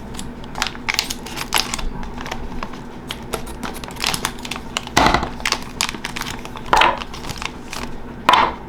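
Hands handling small 1/24 scale RC crawler parts and their packaging: irregular clicks, taps and rustling, with a louder knock about five seconds in and another near the end.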